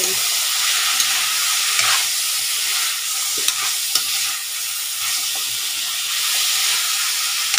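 Pork and chicken pieces sizzling as they are sautéed in a wok and stirred with a metal ladle, a steady hiss with a few sharp clicks of the ladle against the pan.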